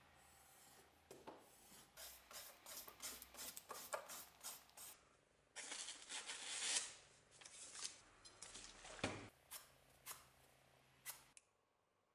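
Paper being sliced against the sharpened edge of a drawknife, a run of short crisp cuts and rustles, as a test of the edge's sharpness.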